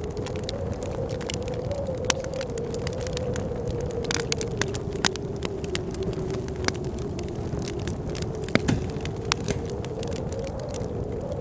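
Wood fire crackling with frequent sharp pops, over steady blizzard wind with a low howl that wavers slightly in pitch.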